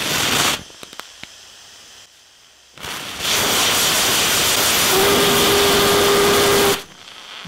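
3D-printed ceramic liquid-fuel rocket engine firing. A short hissing blast stops about half a second in, a few clicks follow, then a louder, steady burn of about four seconds with a steady tone joining halfway through, cut off suddenly. The engine leaks whenever chamber pressure rises.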